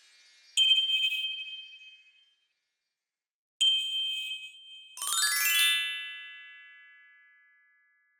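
Designed logo-flash sparkle sound effects. A bright, shimmering chime-like ding about half a second in fades over a second and a half. A second one comes just before four seconds. About five seconds in, a descending cascade of chiming tones swells and then rings out slowly.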